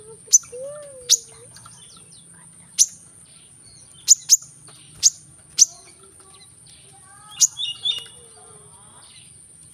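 Brown-throated sunbird calling: about ten sharp, very short, high notes, each sliding quickly down in pitch, spaced irregularly, with a brief twitter near the end. A steady high hiss runs underneath.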